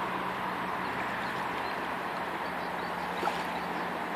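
Steady rushing of a fast river current, with a faint low hum underneath and a single short click about three seconds in.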